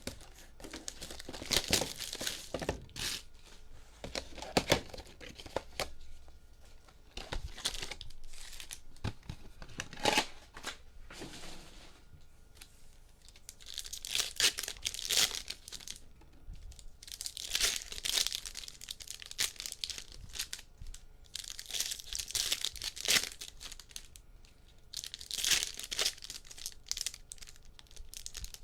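Plastic wrapping and foil trading-card packs being torn open and crinkled by hand, in several separate bouts of loud tearing and crackling with quieter handling in between.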